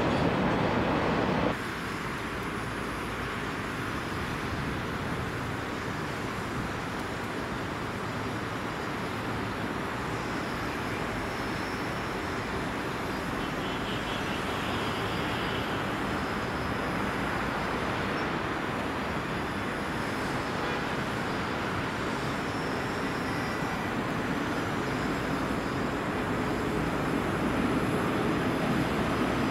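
Distant rumble of a long freight train behind an electric locomotive, approaching and growing slowly louder, over a steady bed of city traffic noise. The level drops suddenly about a second and a half in.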